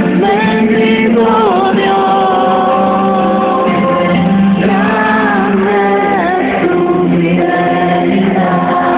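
Live Christian music: a sung melody with held, gliding notes over a band accompaniment, with several voices singing together.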